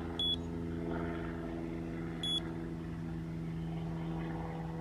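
Two short, high electronic beeps about two seconds apart over a steady low mechanical hum.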